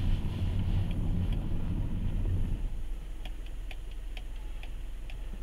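Tractor engine heard from inside the towed van, a low rumble that drops to a quieter idle about halfway through. A light rapid ticking, about four ticks a second, runs through the second half.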